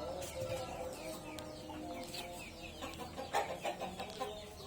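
Chickens clucking, with many short high falling peeps over lower drawn-out calls and a brief louder burst about three seconds in.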